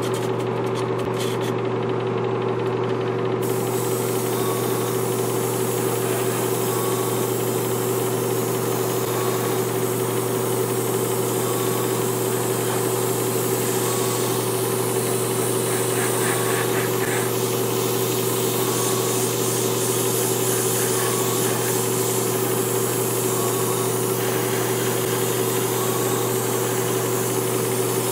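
Airbrush hissing steadily as it sprays model paint, over the constant hum of its small air compressor. The paint, used unthinned, is flowing smoothly without spitting.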